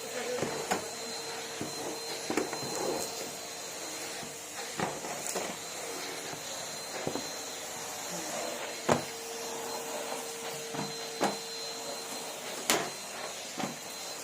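Numatic Henry vacuum cleaner running with a steady motor hiss and a high whine, with sharp knocks about eight times as the hose or nozzle bumps against things.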